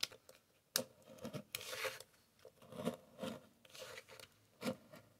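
Craft knife scoring and cutting through a thin clear plastic Pringles can lid on a wooden cutting board: a series of short scraping strokes with a couple of sharp clicks near the start, as the flat centre of the lid starts to come free.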